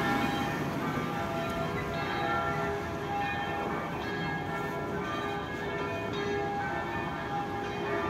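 Several church bells ringing together in an uneven peal, their tones overlapping and fading, over a low city rumble.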